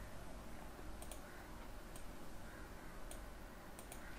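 A handful of faint, spaced clicks from a computer keyboard and mouse as a search is typed and a software node is placed.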